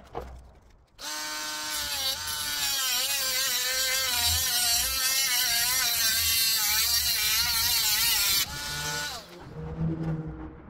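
Small cordless grinder running against the plastic radiator grille frame, its pitch wavering up and down as it bites into the plastic. It winds down about eight and a half seconds in, and a short, quieter low hum follows near the end.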